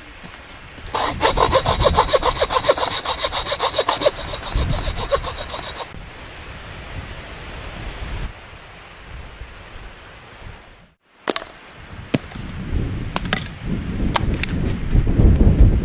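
A saw cutting through wood in rapid, even back-and-forth strokes for about five seconds, then quieter. Near the end come scattered knocks and a low rumble.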